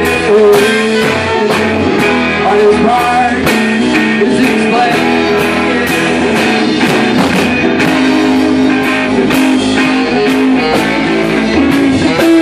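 Live rock band playing: guitar and drums with a steady beat.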